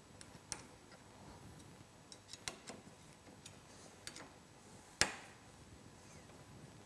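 Faint, scattered clicks and taps of a hand tool working the bottom clamp bolts of snowmobile handlebar risers as they are tightened, with one sharper metallic click about five seconds in.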